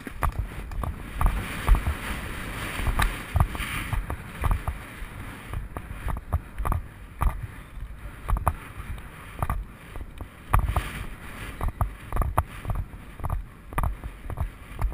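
A horse's hoofbeats at a canter, thudding in a rolling rhythm of about two strides a second, heard from the rider's back with wind rushing on the microphone in the first few seconds.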